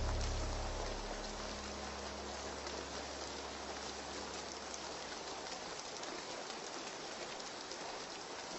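Steady light rain, an even patter with no gaps. In the first few seconds the last low notes of a slowed, reverb-heavy song die away underneath it.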